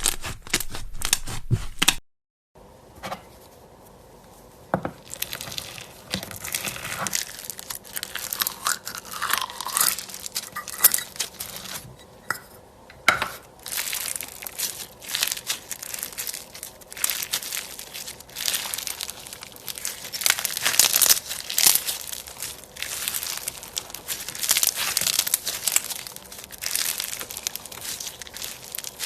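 Slime being squeezed and pressed, giving dense, uneven crackling and crunching clicks. The sound cuts out sharply about two seconds in, starts again, and dips briefly near the middle.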